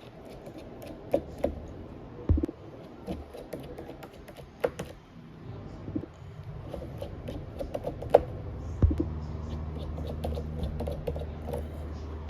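Small scattered clicks and ticks of tiny screws being backed out with a small screwdriver from a Samsung Galaxy A15's internal frame and set down, with a sharper click about eight seconds in. A low steady hum comes in about nine seconds in.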